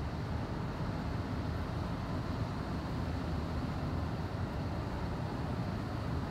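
Steady low rumble of a car driving along a road, as heard from inside the cabin.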